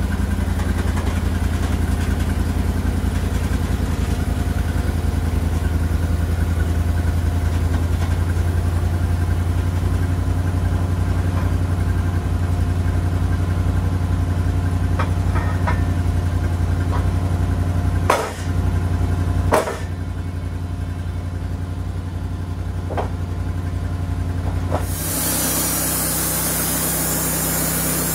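Portable band sawmill's engine running steadily, with two sharp knocks a little past halfway. Near the end the blade starts cutting the log: the engine note drops under load and a loud hissing rush of sawdust blowing out of the chute sets in.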